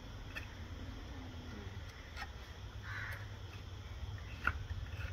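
Hoof knife paring the sole of a horse's hoof: a few short, sharp cutting clicks, the loudest about four and a half seconds in, over a low steady rumble.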